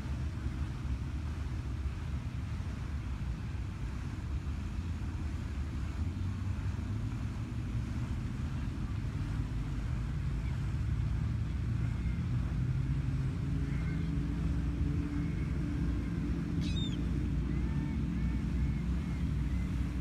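Low rumble of a distant engine, growing louder and a little higher from about halfway through, over wind on the microphone. Faint high bird calls come in over it in the second half, with one sharp falling whistle near the end.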